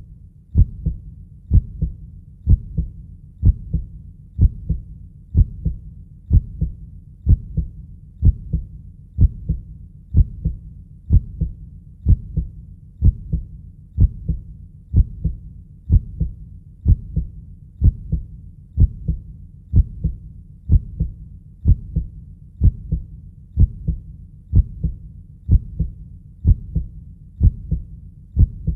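Heartbeat sound looping steadily at about one beat a second, each beat a low thump, over a constant low rumble.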